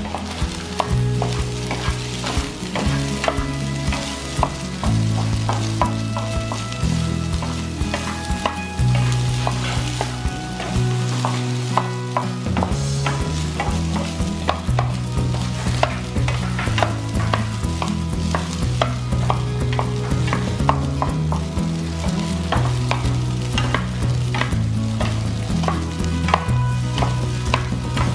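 Wooden spatula stirring and scraping fried rice with shrimp and sausage in a nonstick frying pan, with many quick taps of the spatula on the pan over the sizzle of frying.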